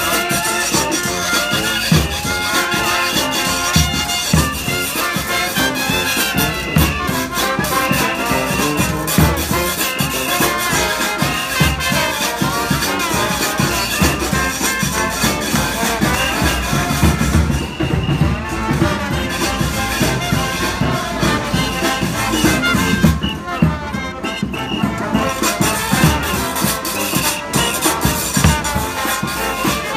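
New Orleans-style brass band playing procession music, with horns and a sousaphone over a steady beat of drum hits.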